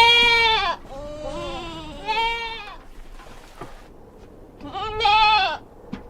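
A farm animal bleating: four wavering cries, the first and the last loudest, with a gap of about two seconds before the last one.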